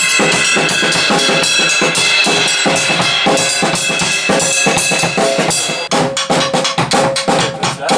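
Drum kit played hard: a fast, dense run of drum hits with cymbals ringing over them.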